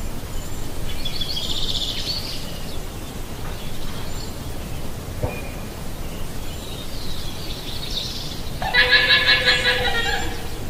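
Llama calls over a steady hiss: short, high calls a second or two in and again about seven seconds in, then a loud, high-pitched call held for nearly two seconds near the end.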